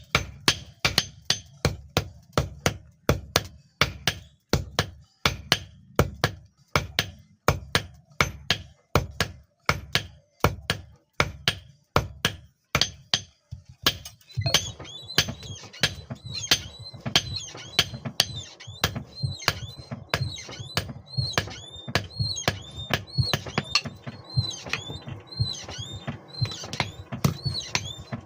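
Hammer blows on steel at the anvil, forging a hex nut into a knife blank, in a steady rhythm of about two strikes a second. From about halfway, a steady background noise sets in and each blow leaves a higher ring.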